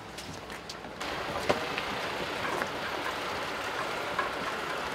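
Steady running noise of a parked chartered coach, with scattered clicks and knocks of bags and gear being handled; the level steps up about a second in.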